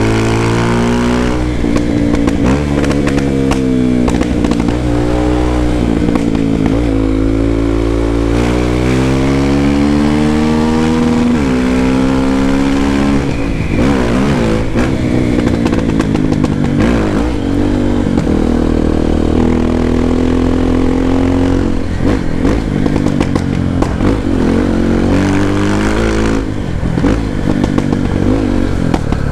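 Honda XR250 Tornado's single-cylinder four-stroke engine through a Belparts Classic exhaust, deep in tone, revving up in pitch through the gears and dropping back several times under riding. Scattered sharp pops come from the exhaust as the throttle eases off.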